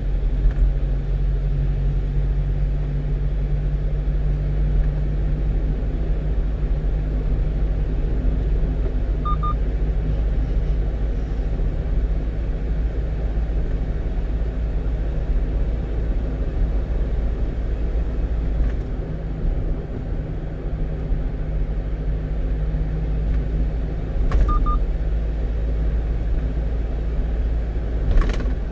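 One-ton truck driving at steady speed, its engine hum and road rumble heard steadily throughout. A short electronic double beep sounds twice, about nine seconds in and again near twenty-five seconds, and there are a couple of sharp clicks near the end.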